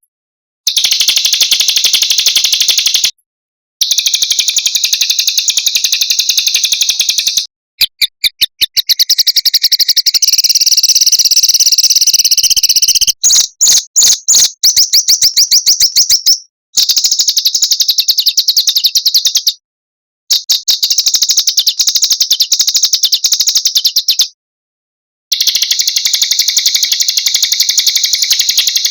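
Small songbirds singing very fast, high-pitched trills in long phrases of several seconds, broken by short pauses, with a few separate sharp notes in between.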